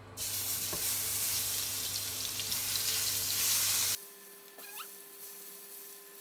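Pineapple slices sizzling in hot oil in a frying pan. The sizzle is loud at first, then drops suddenly about four seconds in to a much quieter sizzle.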